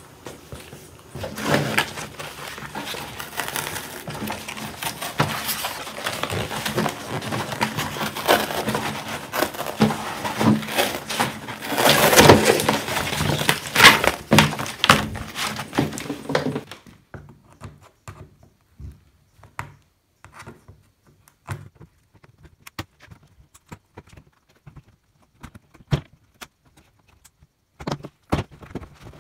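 Old vinyl covering being peeled and torn off a Land Cruiser 60 Series fibreboard door card, with a dense crackling as the aged glue and backing let go; it is loudest about halfway through. It stops suddenly, and only scattered light knocks and clicks from handling the bare board follow.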